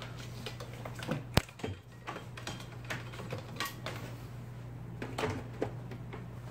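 IBM Selectric golf-ball typewriter working in irregular sharp mechanical clicks, one much louder snap about a second and a half in, over a steady low hum.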